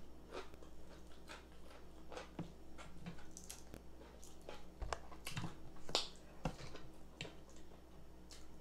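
Close-miked eating sounds: irregular clicks, smacks and crackles of chewing fried chicken while pulling it apart by hand. The sharpest click comes a little past the middle.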